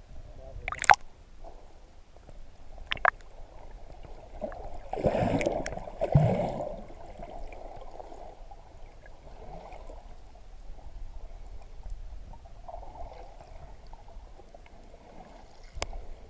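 Muffled underwater water sound, heard through a submerged camera: steady gurgling and sloshing, swelling into a louder burst of bubbling about five seconds in. A few sharp clicks stand out, near the start, about three seconds in, and near the end.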